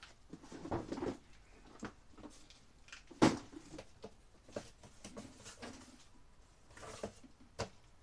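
Rummaging through cardboard boxes: rustling and handling noises with scattered knocks, the loudest a sharp knock about three seconds in.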